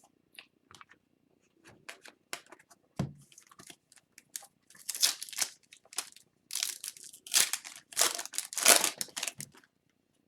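Foil wrapper of a 2021-22 Upper Deck Series 1 hockey card pack crinkling and tearing as it is opened. Scattered small crackles come first, then loud bursts of crinkling from about halfway through, the loudest near the end.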